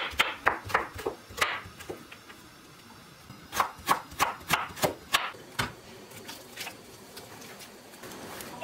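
Kitchen knife slicing zucchini and then cutting carrot into matchsticks on a wooden cutting board. Each stroke is a sharp knock of the blade on the wood, about three a second, in two runs with a pause of a couple of seconds between them.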